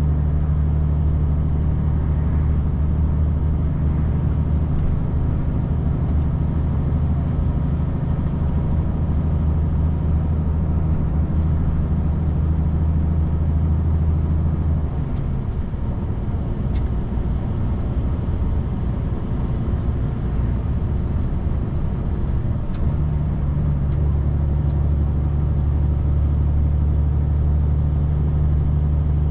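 Vehicle driving along a road: a steady low engine drone with road and tyre noise. About halfway through, the engine note drops away for several seconds, leaving mostly road noise, then comes back.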